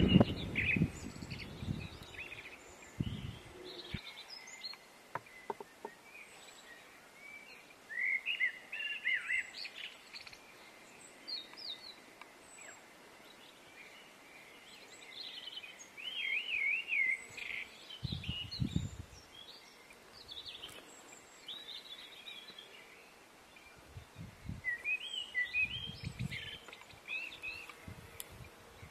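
Songbirds singing in short, twittering, warbling phrases at intervals, with a few brief low rumbles in between.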